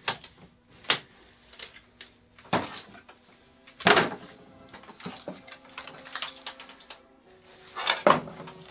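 Irregular sharp knocks from a mallet striking plastic wedges driven into the mould seam, working a cured carbon fibre part free of its mould. The loudest knock comes about four seconds in, and another comes near the end.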